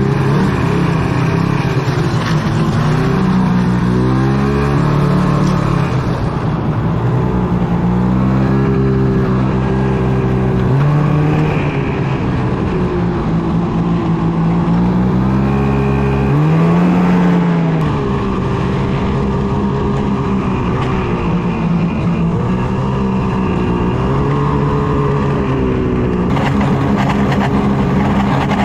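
Ski-Doo snowmobile engine running under way, its pitch rising and falling several times as the throttle is opened and eased off.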